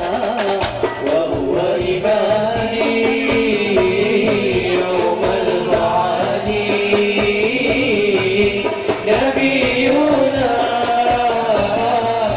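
Young men's voices singing an Islamic devotional song (sholawat) through a PA system, over hand percussion with jingles keeping a steady beat.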